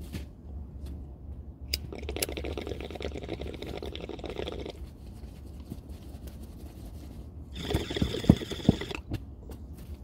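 Water bong bubbling as a hit is drawn through it, twice: a first pull of about three seconds, then a shorter one near the end with a few sharp pops. Two quick clicks of a lighter come just before the first pull.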